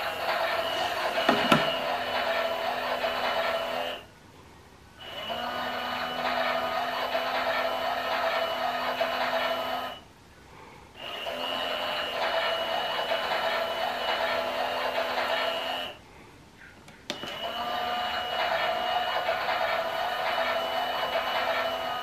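Toy Klein Miele washing machine's small electric motor turning the drum in short reverse tumbles: a steady whine for about five seconds, stopping for about a second, then starting again, three pauses in all.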